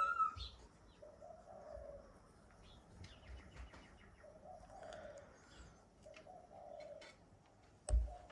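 A dove cooing over and over, low soft coos every second or two. There is a short, higher call at the very start and a sharp knock near the end.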